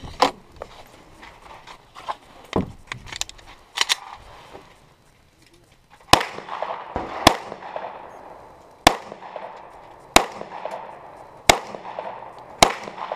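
Six semi-automatic pistol shots, each a sharp crack with a short echo, spaced about a second and a quarter apart, starting about six seconds in. Before them come lighter clicks and knocks.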